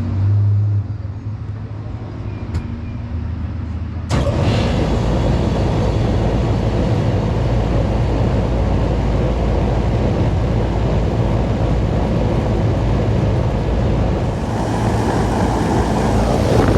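Carrier 38AK commercial air-conditioning condensing unit starting up. A low steady hum comes first; about four seconds in, the unit comes on abruptly and runs with a loud, steady whooshing rumble.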